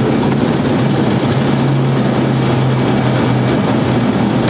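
Embraer Legacy business jet's engines at takeoff thrust, heard inside the cockpit on the takeoff roll: a loud, steady rush with a low hum that stands out through the middle.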